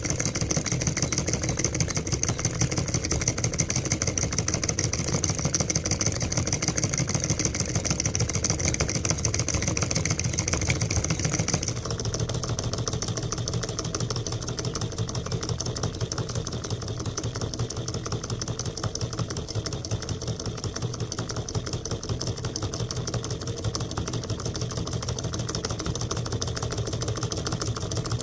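Homemade solenoid engine running fast: the magnet plunger in the syringe-wound copper coil shuttles back and forth, driving the crank and flywheel with a rapid, steady clatter. About twelve seconds in the sound turns a little quieter and duller.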